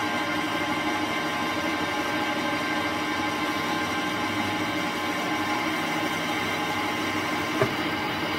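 Manual metal lathe running during a turning pass: a steady machine hum with several constant tones, and one sharp click near the end.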